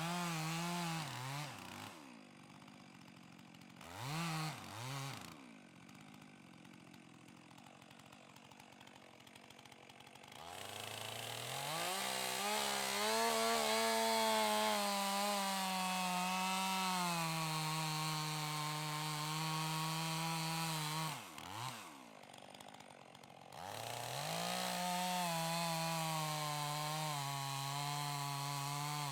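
Two-stroke chainsaw idling with a couple of quick throttle blips, then run up to full throttle and held, its pitch sagging under load as it cuts into a pine trunk. About three quarters of the way in it drops briefly to idle with one blip, then goes back to full throttle and cuts on.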